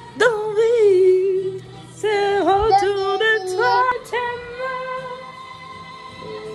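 A woman singing a cappella: a long held note with a wavering pitch, a quick run of rising and falling notes in the middle, then held notes that fade quieter toward the end.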